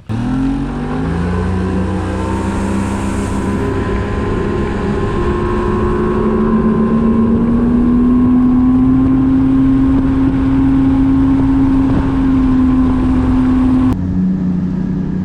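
Boat's outboard motor running at speed on the river: its pitch climbs quickly as it accelerates at the start, then holds steady and creeps slightly higher. The sound changes abruptly to a lower pitch about a second before the end.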